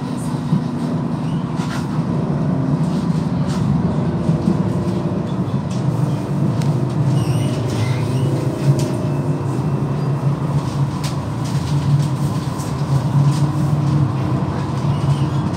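Amsterdam GVB tram running along its track, heard from inside the car: a steady low rumble from the wheels and running gear, with a faint constant whine and a few light clicks.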